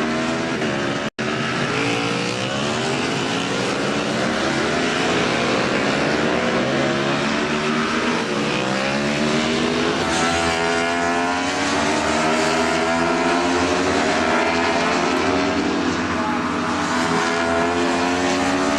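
Several racing motorcycles running hard on track, their engines repeatedly revving up through the gears and dropping on shifts and braking, overlapping one another. The sound cuts out for an instant about a second in.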